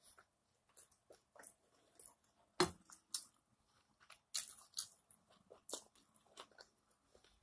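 A person chewing steak close to the microphone: irregular wet clicks and crunches, with one louder click about two and a half seconds in.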